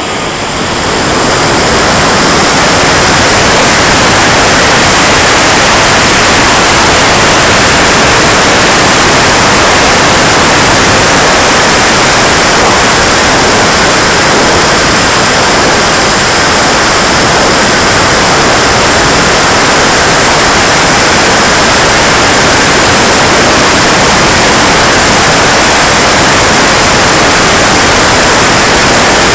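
KingTech K80 jet turbine of a radio-controlled model jet running at high power: a loud, steady hiss with a faint high whine, building over the first couple of seconds.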